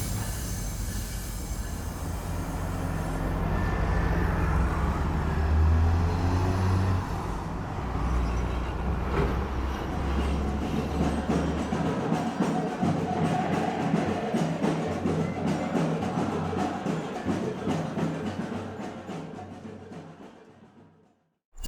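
A heavy rumbling vehicle passing, its low rumble giving way about halfway through to a fast, even run of clattering clicks that fades out near the end.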